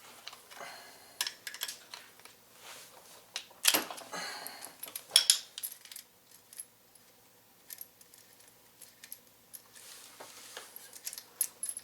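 Small metal parts of a motorcycle rear brake pedal assembly clinking and rattling as they are handled and taken apart, with a few sharper metallic knocks about four and five seconds in.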